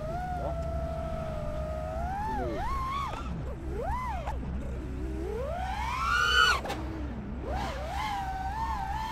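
FPV racing quad's four brushless motors (MEPS 2207 1750KV) whining as the throttle works. The pitch swoops up and down, climbs to a loud high whine about six seconds in, then drops sharply, over a steady low hum.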